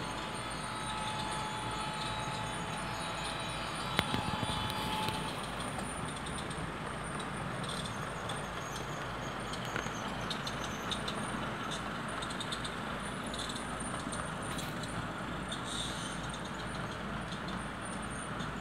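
HO scale model train running along the track, a steady rumble and rattle of its wheels on the rails with the hum of its motor. There is one sharp click about four seconds in.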